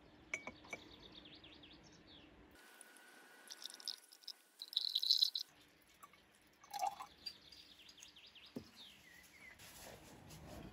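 Faint trickle of water poured from one glass beaker into another, decanting the wash water off the settled boron slag, loudest for about a second around the middle. Birds chirp faintly in the background, and there are a few light clicks.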